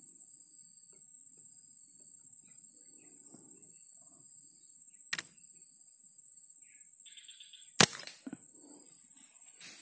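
An air rifle fires about eight seconds in: one sharp shot, the loudest sound here, followed by a few smaller knocks. A fainter sharp click comes about five seconds in, over a steady high drone of insects.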